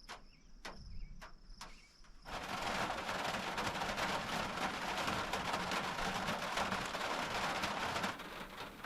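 Steady high insect trill with a few sharp clicks. Then, suddenly about two seconds in, the steady hiss of heavy rain, easing a little near the end.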